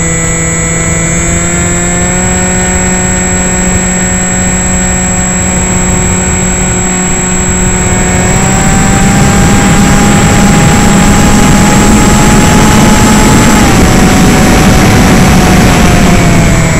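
AXN RC plane's electric motor and propeller whining, heard from its onboard camera, with air rushing past. About eight seconds in the pitch steps up and it gets louder as the throttle is opened and the plane dives; the pitch drops a little later and falls away near the end.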